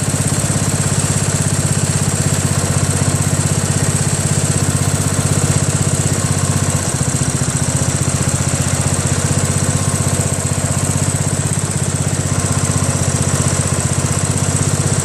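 Briggs & Stratton 15.5 hp engine of a Craftsman LT1000 lawn tractor running steadily. It is fed by a shortened gravity fuel line, and afterwards the owner says it "seems to be alright".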